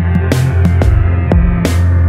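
Electronic background music with a heavy, steady bass line and a regular drum beat with cymbal hits.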